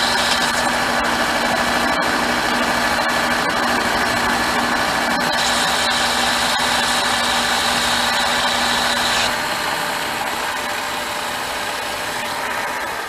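Metal lathe running steadily with its carriage driven along by the leadscrew through the engaged half nut. About nine seconds in its higher whine drops away and the sound goes down a little, and near the end the machine winds down.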